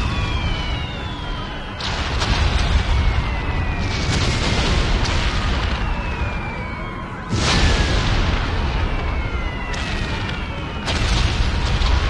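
Battle sound effect: a dense wall of explosions with a deep rumble, struck by several sudden blasts, the loudest about seven seconds in. Falling whistles cut through it again and again.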